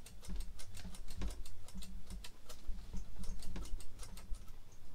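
Knife chopping cisco finely on a cutting board: a quick, uneven run of light clicks and taps, several a second, with dull knocks from the board under them.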